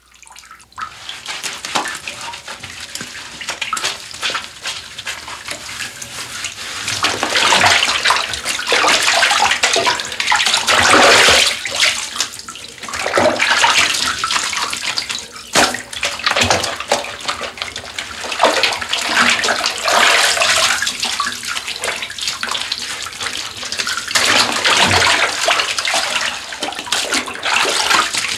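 Bathwater sloshing and lightly splashing in a bathtub as a person moves in it, in irregular swells, fading in at the start.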